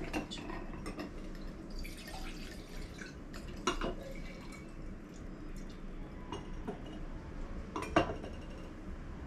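Wine glasses being handled: light clinks and knocks of glass, with faint liquid sounds of wine in the glass. A sharp clink near four seconds in, and the loudest clink about eight seconds in.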